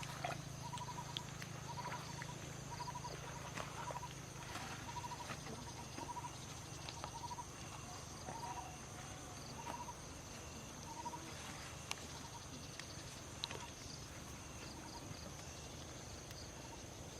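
Faint outdoor ambience: a short animal call repeated roughly every second, thinning out and stopping about two-thirds of the way through, over a steady high insect whine and a low hum, with scattered small clicks.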